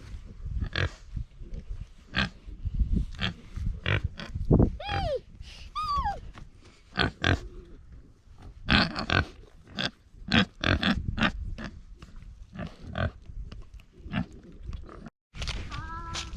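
Domestic pigs grunting in short, irregular bursts, with a couple of brief higher calls that slide down in pitch about five and six seconds in.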